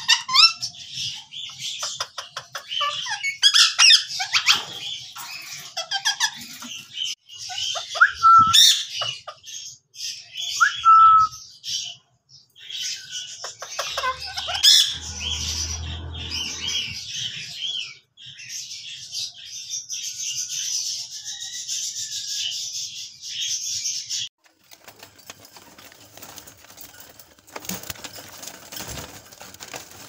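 Indian ringneck parakeets calling in a cage, a dense run of shrill, rapid calls that stops suddenly about three-quarters of the way through, leaving only faint sound.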